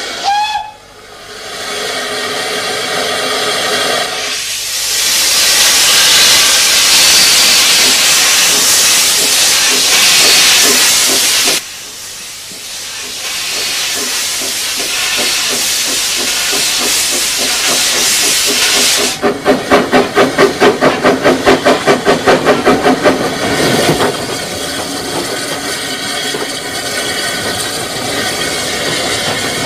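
Narrow-gauge steam tram locomotive hissing loudly with escaping steam. The hiss cuts off suddenly about eleven seconds in, and a quieter hiss follows. Later the locomotive works along with a quick run of exhaust chuffs, about four or five a second, which gives way to a steadier running sound.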